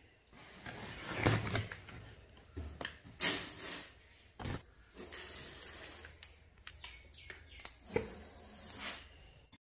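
Rice being scooped by hand out of a plastic-lined sack and poured onto a flat tray, with crinkling of the plastic bag, in several separate rustling, pouring bursts. The sound cuts off abruptly just before the end.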